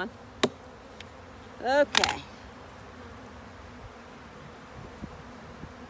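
Honeybees buzzing steadily around an open hive, with a sharp click about half a second in.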